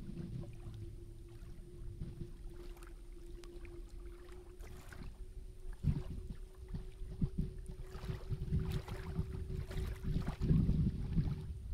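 Small waves lapping at a flooded lakeshore, in uneven swells that grow stronger near the end, with wind buffeting the microphone and a steady hum underneath.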